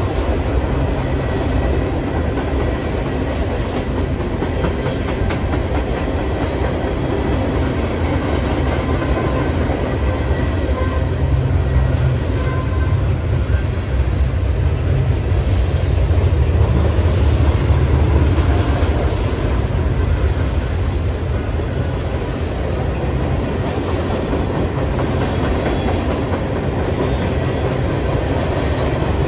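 Freight train cars rolling past across a railway overpass: a steady, loud low rumble of steel wheels on the rails that swells a little about two-thirds of the way through.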